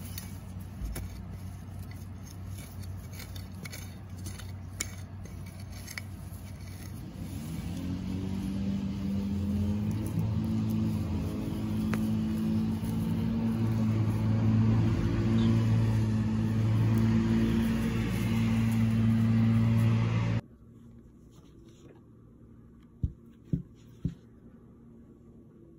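Light crackling and rustling of carrot tops being pulled from the soil. Then an engine running with a steady low hum that grows louder for about twelve seconds and cuts off suddenly. Near the end come three light taps.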